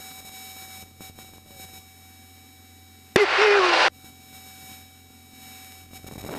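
A person's short, loud, distorted vocal strain over the aircraft headset intercom, lasting under a second, about three seconds in, with the strain coming from G load in an aerobatic manoeuvre. The rest is a faint steady hum with a few steady tones.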